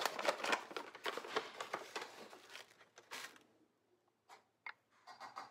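Kraft-paper pouch of ground flaxseed meal crinkling and rustling as it is handled and opened. The crinkling is dense for the first two and a half seconds, comes once more in a short burst, then thins to a few light clicks.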